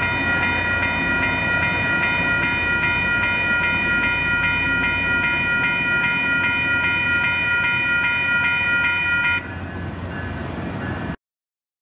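Railroad grade-crossing warning bell ringing in rapid, even strokes over the low rumble of a passing diesel railcar and traffic. The bell stops about nine seconds in, leaving the quieter rumble, and the sound cuts out to silence near the end.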